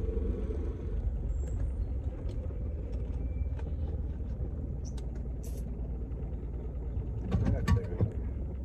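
Steady low rumble of a car's engine and road noise heard from inside the cabin, with a few faint clicks midway and a couple of louder knocks about seven and a half seconds in.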